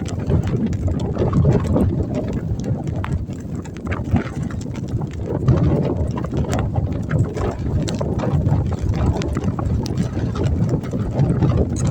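Blizzard wind buffeting the microphone in a rough, uneven rumble, with scattered short clicks and crunches through it.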